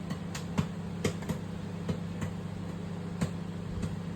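Microwave popcorn in a bag, butter flavour, popping in a running microwave oven: about ten sharp, scattered pops over the steady hum of the oven. The popping is nearly finished.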